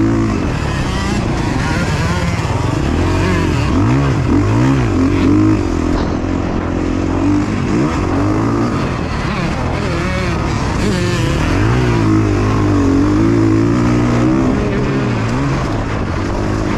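KTM 350 XC-F single-cylinder four-stroke dirt bike engine revving up and down over and over as the bike is ridden hard around a motocross track, its pitch climbing under throttle and dropping as it shifts or rolls off.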